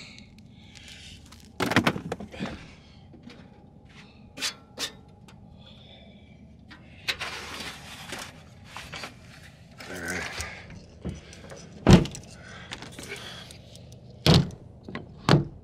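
Gear being handled and packed: rustling with a series of knocks and clatters, then heavy thunks near the end as the pickup's camper-shell rear window is pushed shut.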